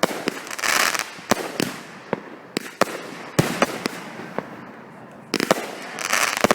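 Consumer 200-gram firework cakes (Cutting Edge Power Zone fired together with Hardcore cakes) going off: a rapid string of sharp shots and loud reports, with bursts of dense hiss about a second in and again near the end.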